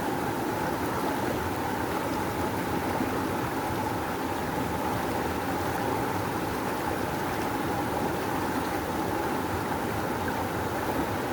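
Rushing river water flowing hard in a steady, unbroken rush.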